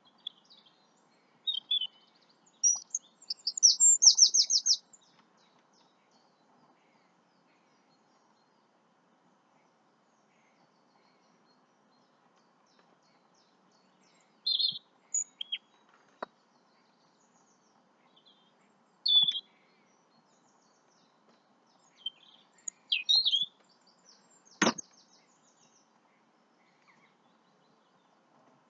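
Wild birds chirping outdoors in short, scattered calls with long quiet gaps, including a quick high trill a few seconds in. A single sharp knock sounds about 25 seconds in, over a faint steady background hiss.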